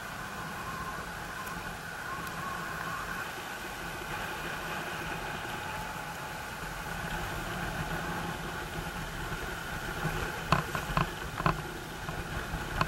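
Steady rushing and humming of a sailing catamaran under way at speed, with a few short knocks near the end.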